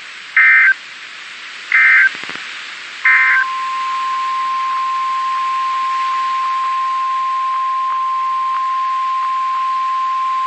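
Emergency Alert System activation on NOAA Weather Radio: three short bursts of warbling SAME digital header tones, then the single steady warning alarm tone from about three seconds in, over constant radio hiss. The tones announce a new severe thunderstorm warning.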